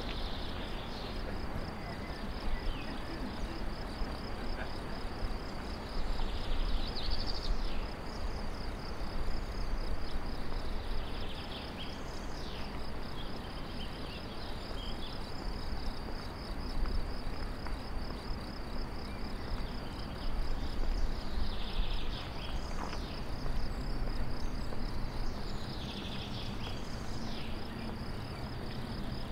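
Insects chirring in a steady, rapidly pulsing high trill, over a steady low outdoor rumble.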